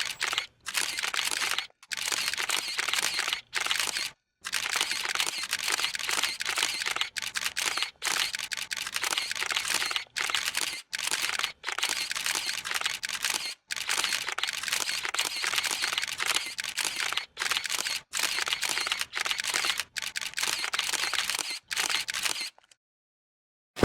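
Camera shutter sound effects: a camera shutter firing in long runs of rapid clicks, broken by short pauses, stopping about a second and a half before the end.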